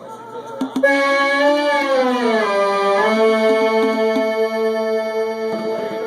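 Electronic tone from an iPad played through the sound system, starting about a second in, gliding down in pitch, then holding steady over a lower sustained note.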